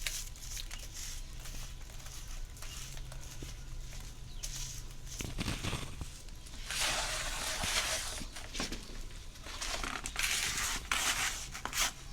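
Charred chicken feathers (tite) being crushed and rubbed by hand, a dry crunching and crackling with many small clicks, busiest for a couple of seconds past the middle.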